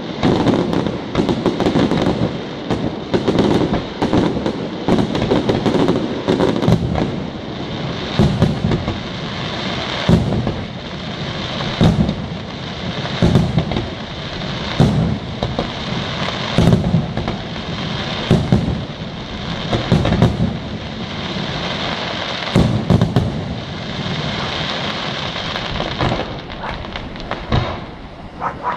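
Fireworks display: aerial shells bursting, a dense volley at first and then single booms about every one and a half to two seconds. A continuous hiss and crackle runs between the booms.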